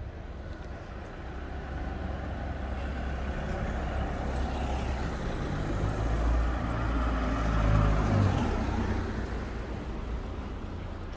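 A heavy road vehicle passes close by in traffic. Its engine grows louder to a peak about six to eight seconds in, then fades away.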